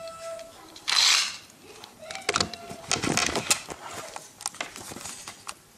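A short loud rustling rush about a second in, then a quick run of plastic clicks and knocks as a Beyblade launcher with a grip attached is handled.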